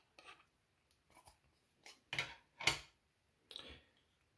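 Light plastic clicks and scrapes from handling the opened plastic case and circuit board of a UNI-T UT658DUAL USB tester: a handful of short, faint sounds, the two loudest just past the middle.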